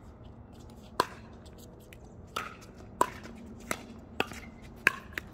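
A pickleball rally: paddles striking a hard plastic pickleball back and forth. About seven sharp pops come at uneven intervals of roughly half a second to a second.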